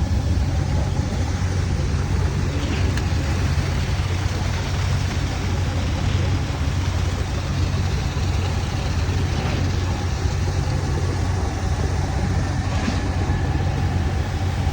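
KCP 63 truck-mounted concrete boom pump running under load with a steady low engine rumble, and a short knock about every three seconds in time with the pump's strokes while it pumps blinding concrete.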